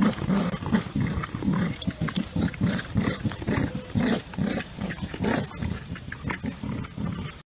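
A dog making a rapid run of short, gruff growl-like vocalizations, about three or four a second, that cuts off abruptly near the end.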